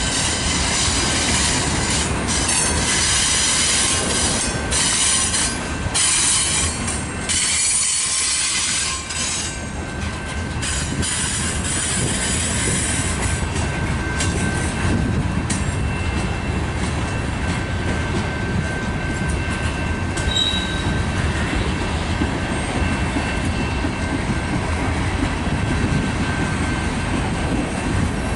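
Freight cars of a mixed freight train rolling past close by: a steady, loud rumble of steel wheels on rail with thin, steady wheel squeal running under it. A high hissing wheel screech comes and goes in the first ten seconds or so, then eases.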